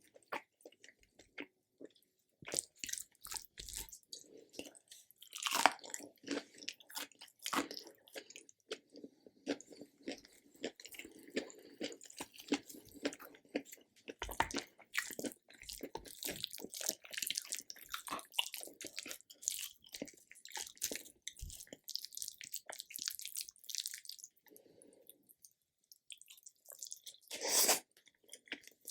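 Biting into and chewing a samosa, the fried pastry crunching in irregular crackles, with a louder crunch about five and a half seconds in and another near the end.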